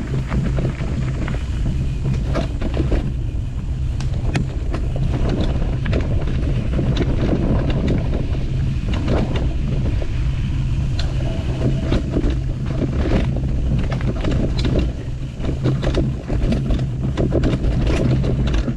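Mountain bike riding a dirt forest trail, heard through a camera carried with the rider: wind rumbling on the microphone, with frequent knocks and rattles from the bike jolting over roots and bumps.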